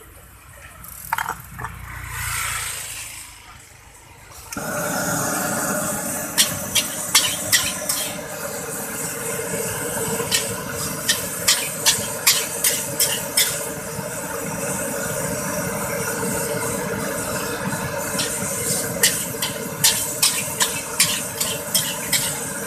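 Metal spatula scraping and clanking against a large steel wok as nasi goreng mawut (fried rice with noodles) is stir-fried, over a steady sizzling hiss. The sizzle starts suddenly about four and a half seconds in, and the clanks come in quick runs of several strikes.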